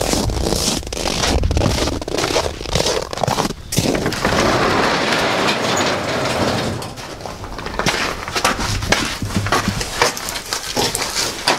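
Footsteps crunching through cold, packed snow, a quick run of irregular crunches, with a few seconds of steady rushing noise in the middle.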